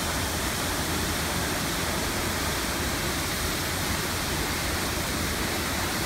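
Waterfall plunging into a pool: a steady, unbroken rush of falling water.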